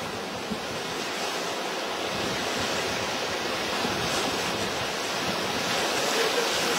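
Rushing whitewater of river rapids, a steady noise of churning water that grows gradually louder as the raft draws nearer.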